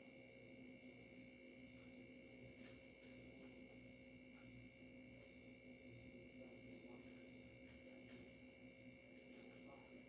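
Near silence: room tone with a faint steady electrical hum and whine, and a few faint ticks scattered through it.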